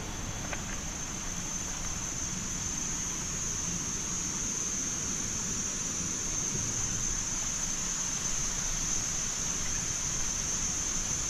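Steady, high-pitched insect chorus from the surrounding forest, growing a little louder in the second half.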